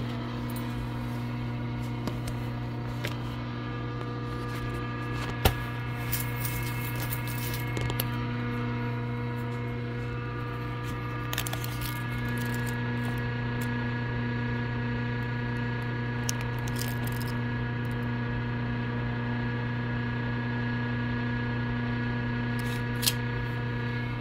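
Steady electric hum of an idle industrial sewing machine's motor, with a few light handling clicks.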